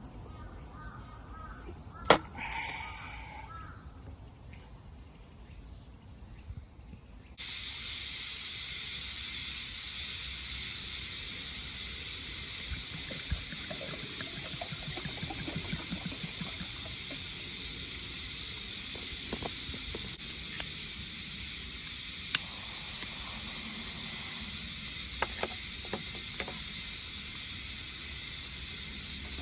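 Steady, high-pitched insect chorus in summer woodland, turning into a broader, louder hiss after about seven seconds. A sharp click sounds about two seconds in, with a few fainter knocks later.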